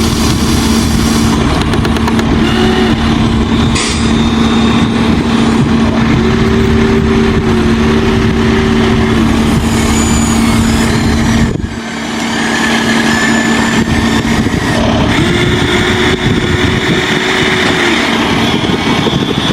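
Radio-controlled model excavator and truck running: a steady motor whine, with a second, higher whine coming in and out several times over dense engine-like noise. The level dips briefly about halfway through.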